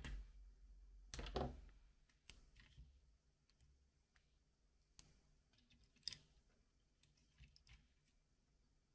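Faint handling noise of small parts and tape on a work mat: scattered small clicks, with the loudest cluster and a short rustle about a second in.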